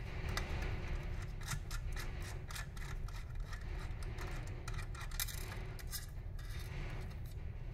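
Small, irregular metal clicks and scrapes as a screw is worked loose from a sheet-steel chassis panel, over a steady low hum.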